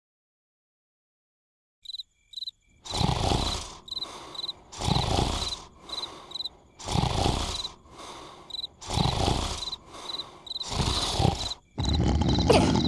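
Cartoon larva snoring in long, even snores about one every two seconds, starting about three seconds in, with crickets chirping between the snores.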